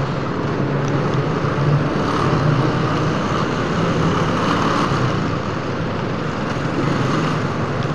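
Motorcycle engine running steadily at low speed in slow traffic, a low even hum under a constant rush of road and traffic noise.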